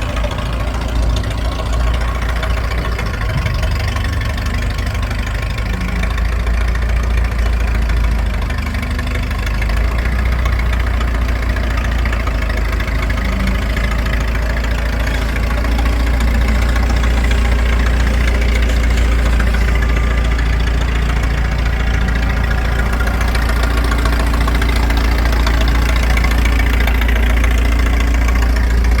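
Massey-Ferguson 30 industrial tractor's engine running steadily, getting a little louder about halfway through.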